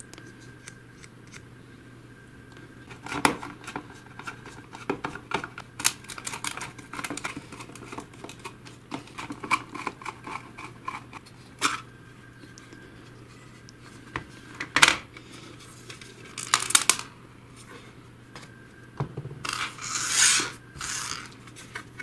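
Hard plastic parts of a robot vacuum's dust-bin container being handled and pulled apart: scattered clicks, knocks and rattles, with two louder knocks, a few seconds in and again past the middle, and a short scraping rustle near the end, over a faint steady hum.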